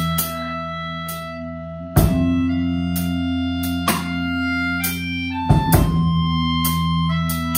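A live rock band playing: sustained, ringing guitar chords over a steady bass, with drum and cymbal hits roughly every couple of seconds.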